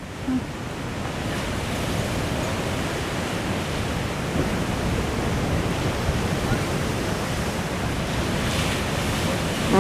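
Ocean surf breaking against black lava rocks: a steady, rushing roar of waves and foam.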